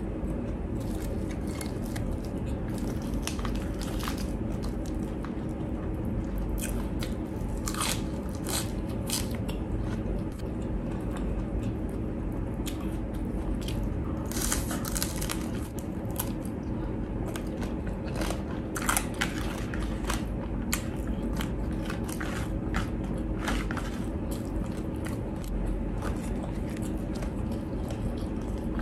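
Crunching bites and chewing of deep-fried crispy pork, many short crackles close to the microphone, over a steady low hum.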